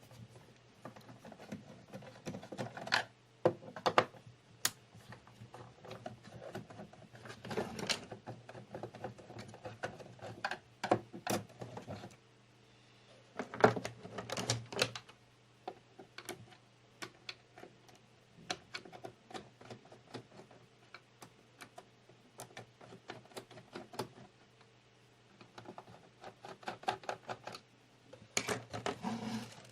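Irregular clicks, taps and short clattering runs of a screwdriver and the plastic casing of an LCD monitor being taken apart, over a low steady hum.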